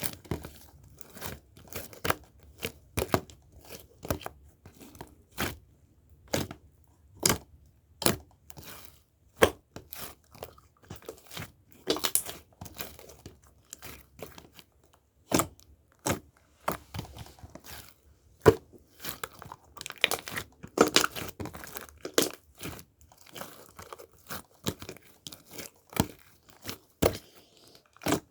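A rapid, irregular series of crisp crackles and crinkles, like something being crumpled or torn up close.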